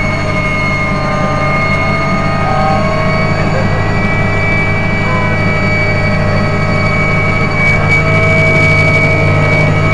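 Cabin noise of a Mi-2 helicopter in flight: the steady drone of the rotor and twin turboshaft engines, with a high steady turbine whine above it, heard from inside the passenger cabin.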